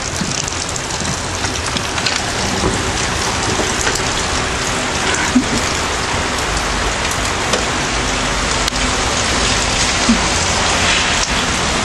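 Torrential rain pouring down steadily: a loud, even rush of water, with a few sharper ticks of single drops.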